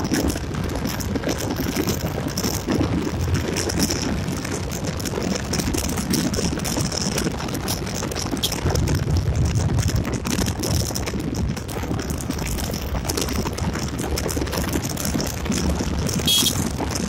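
Yamaha Gladiator 125 cc single-cylinder motorcycle on the move: steady engine drone and wind rushing over the microphone, with continual light rattling from the bike. A brief high-pitched sound comes near the end.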